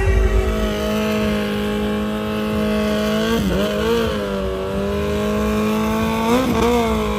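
Motorcycle doing a burnout: the engine is held at high revs with the rear tyre spinning on the pavement, giving a steady pitch that dips and recovers briefly twice, once about halfway through and again near the end.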